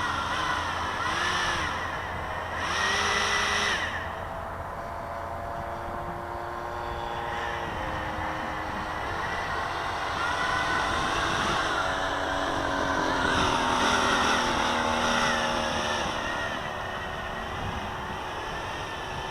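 Electric RC model airplane's motor and propeller whining, the pitch gliding up and down as the throttle is worked, with louder surges a couple of times.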